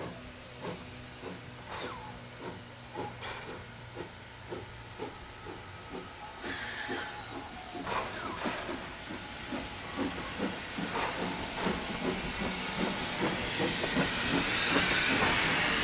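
Clover Valley Lumber Co. No. 4 steam locomotive working a freight train, its exhaust chuffing in an even beat of about two or three a second that grows louder as it approaches. A short burst of steam hiss comes about six seconds in, and a loud hiss of steam at the cylinders builds as the engine passes near the end.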